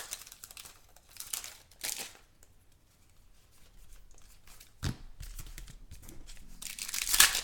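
Wrappers of 2016 Contenders trading-card packs being torn open and crinkled, in short bursts, with a single knock about five seconds in and more crinkling near the end.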